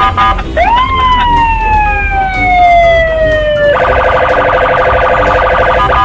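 Police car siren: one long wail that climbs quickly, then slides slowly down for about three seconds, then switches to a rapid warbling yelp that stops just before the end.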